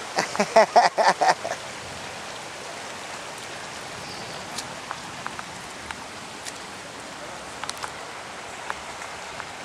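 Steady wash of rain and running floodwater, with scattered sharp drips. A brief run of quick vocal sounds comes in the first second and a half.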